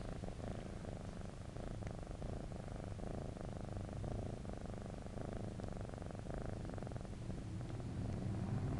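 Tabby-and-white kitten purring steadily, close to the microphone.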